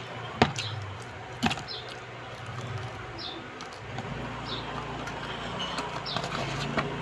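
Eating noises from a person chewing fried chicken wings, with two sharp clicks early on. Short high chirps repeat about once a second over a low steady hum.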